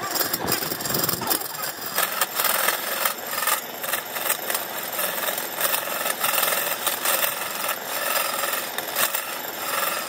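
Turning tool cutting into a burl wood and epoxy blank spinning on a belt-driven lathe: a continuous rasping, scraping noise that surges and eases as the tool bites.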